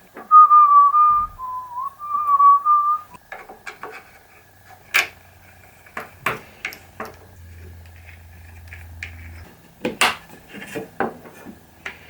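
A person whistles a short tune, two quick phrases lasting about three seconds. After that come a few scattered knocks and clinks.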